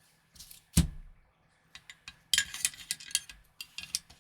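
Parts of an airsoft rifle's inner barrel and hop-up unit being handled and fitted back together: a sharp knock about a second in, then a quick run of small clicks and rattles, and a few more clicks near the end.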